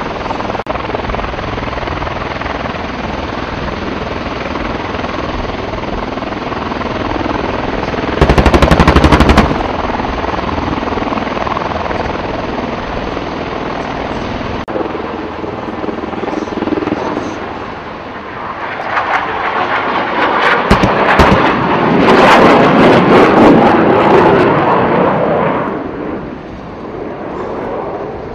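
MV-22 Osprey tiltrotor running on the ground with its rotors turning, a steady loud noise. About eight seconds in, a short burst of rapid automatic gunfire cuts across it. Later come more, louder bursts of gunfire with a heavy thump among them.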